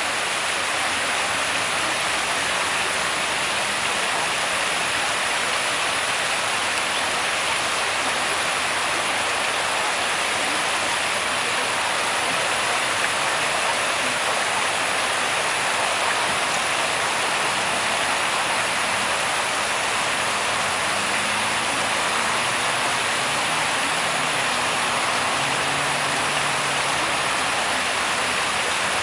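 Steady rushing of water, an even hiss without breaks or changes.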